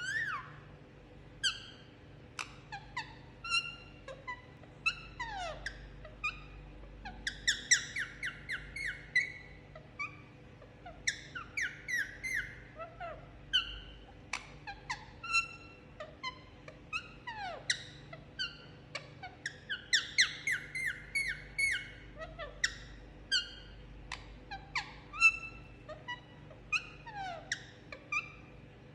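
Indian ringneck parakeet giving a string of short chirps and squawks, with two quick runs of rapid chattering notes. These are the sounds it makes while enjoying a head massage.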